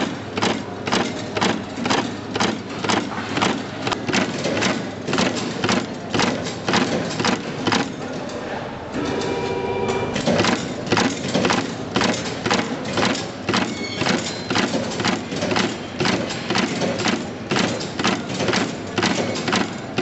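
Wire terminal crimping machine stamping in a steady rhythm, about three sharp metallic strokes every two seconds, as terminals are crimped onto wire ends. About nine seconds in, the strokes pause for about a second under a brief steady tone.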